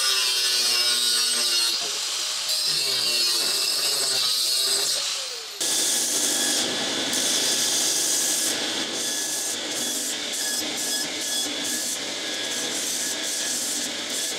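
Stainless steel exhaust tailpipe being ground on a belt sander, a steady metal-on-abrasive grinding hiss with flickering high-pitched scraping as the pipe end is pressed to the belt. For the first five seconds or so, a different power tool works on the pipe with a wavering pitch, and the sound changes abruptly to the sander.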